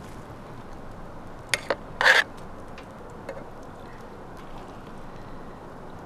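A metal spoon clinking and scraping against a stainless steel cup as rice is stirred into broth. There are two light clicks, then a louder short scrape about two seconds in, over a steady background hiss.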